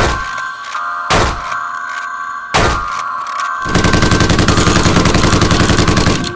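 Two single shot-like bangs, then about two and a half seconds of rapid automatic fire, with many shots a second, over a steady high tone.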